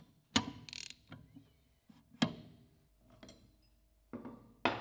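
Sharp metallic clicks and clinks, about seven at uneven spacing, with a short scrape near the start, from the Knorr-Bremse bayonet ring tool being worked on the desiccant cartridge's bayonet ring and handled against the air dryer housing.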